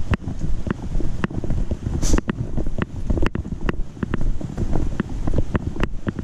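GoPro clipped to a backpack chest strap, jolted by each walking step: a sharp click or knock about twice a second over a steady low rumble of rubbing and wind on the microphone, with a brief hiss about two seconds in.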